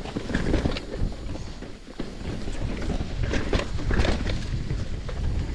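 Mountain bike riding over rough trail: an irregular run of knocks and rattles from tyres and bike over bumps, over a constant low rumble.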